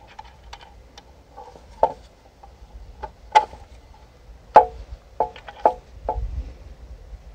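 Wooden boards and bolts being handled while bolts are fitted by hand through pre-drilled kit lumber: a run of small clicks, then about six sharper wooden knocks from about two seconds in.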